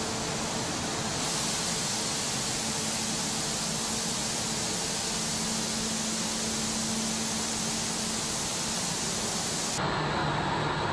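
Steady, hiss-like running noise of carbon-fibre production machinery and air handling in a factory hall, with a faint low hum. Near the end the sound shifts abruptly to a duller machine rumble with less hiss.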